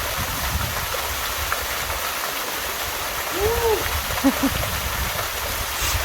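Steady splashing rush of a small, low-flow waterfall pouring over rock. A brief vocal sound comes in about three and a half seconds in.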